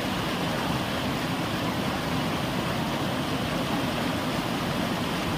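Fast-flowing river water rushing through rapids, a steady, unbroken rush of noise.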